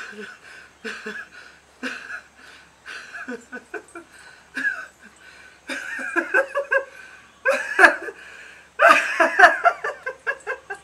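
A man sobbing and crying out in short broken bursts, acted for a scene. The bursts are sparse at first, then come thicker and louder from about six seconds in.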